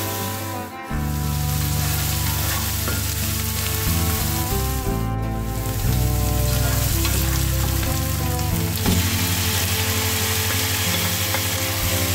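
Onions frying in oil in a pan, sizzling steadily as they are stirred with a spatula, with background music underneath.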